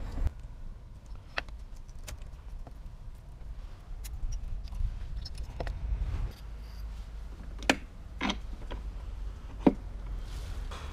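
Metal engine parts of a Dinli ATV engine being handled and set down: scattered clinks and knocks from the cylinder, crankcase and gears, the sharpest few in the last third, over a low steady rumble.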